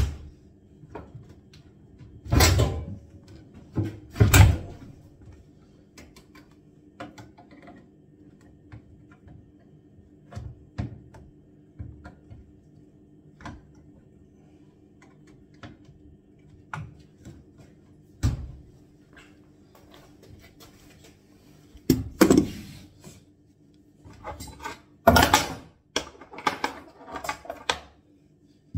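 Irregular knocks and clunks of a spanner and grips against the sink pipework and cabinet while the pipes under a kitchen sink are undone, with a faint steady hum underneath. The loudest knocks come about two and four seconds in, and a cluster comes near the end.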